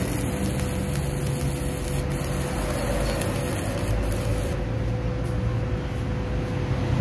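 Stick-welding arc running on thin stainless steel, stopping about four and a half seconds in. A steady low hum continues throughout.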